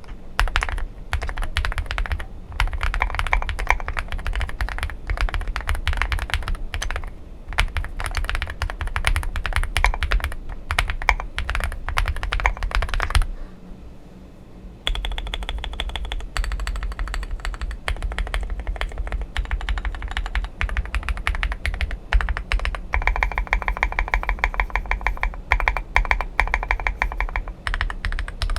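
Typing on a Zoom65 mechanical keyboard with lubed Jwick switches and Akko SAL keycaps: fast, steady runs of key clicks, stopping for about a second and a half a little before halfway, then carrying on.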